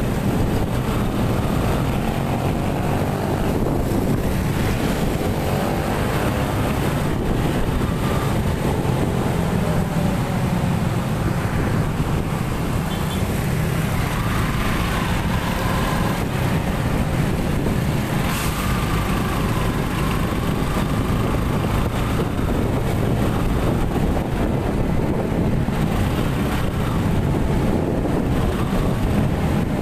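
Steady riding noise from a motorcycle on the move on a wet road: the engine running under a constant rush of wind and road noise, with the engine pitch drifting faintly up and down as the speed changes.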